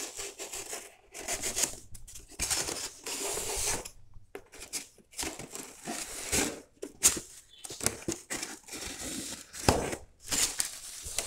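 Tearing and scraping at the seam of a styrofoam shipping box as its lid is worked open by hand, in a string of short, irregular bursts.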